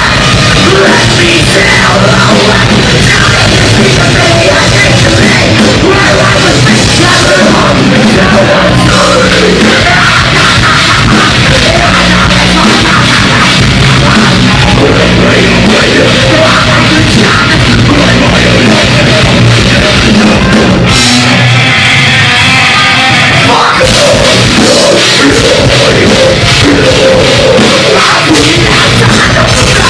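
Live heavy metalcore band playing loud, with distorted guitars, bass, drums and harsh vocals. About 21 seconds in the low end drops out for a few seconds, then the full band comes back in.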